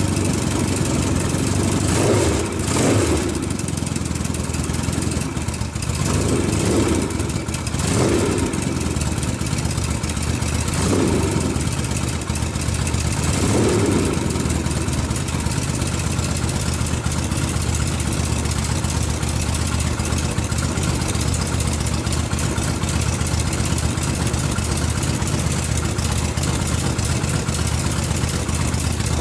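Freshly rebuilt Yamaha XS650 parallel-twin motorcycle engine running after a top-end rebuild with new valves. It is revved briefly about five times in the first fifteen seconds, then settles to a steady idle.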